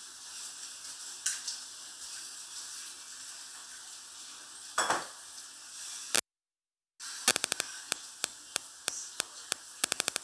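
A steady sizzling hiss of cooking, with a single clink and a short scrape; about six seconds in the sound cuts out briefly, then a quick run of sharp clicks, three or four a second, as a utensil knocks against a mixing bowl while food is stirred.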